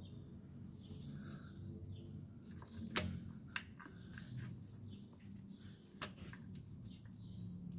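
Faint clicks and handling noises from a gloved hand working the cables and connectors of a Jeep Grand Cherokee WJ starter motor, with one sharper click about three seconds in.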